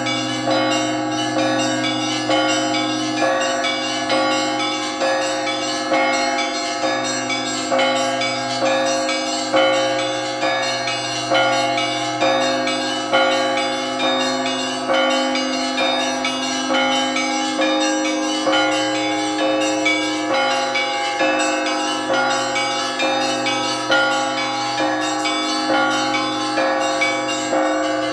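Orthodox church bells rung together in a continuous peal: quick, overlapping strokes on several bells of different pitch over the held low hum of the larger bells, with a stronger stroke about once a second.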